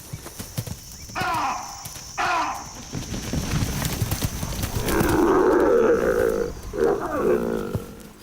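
Lions and an oryx in a close confrontation: scuffling and movement, two short animal calls early on, then a loud growling and snarling from about five seconds in, with rasping calls near the end.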